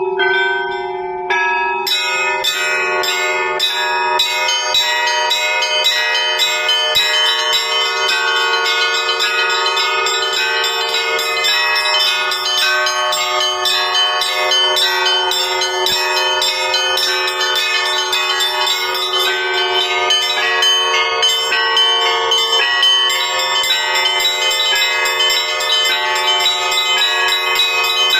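Russian Orthodox church bells ringing a peal to greet a cross procession. A few single strokes sound over the hum of a larger bell, then about two seconds in the small bells join in a rapid, unbroken pattern of many strikes.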